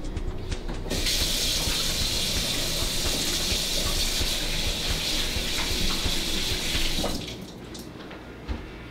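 Kitchen faucet running into a stainless-steel sink while hands are washed after handling raw chicken; the water comes on about a second in and shuts off about seven seconds in.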